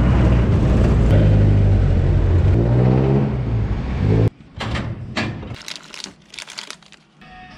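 Road vehicle engine running steadily, then speeding up with a rising pitch, cut off suddenly about four seconds in. After that come a few quieter scattered clicks and knocks.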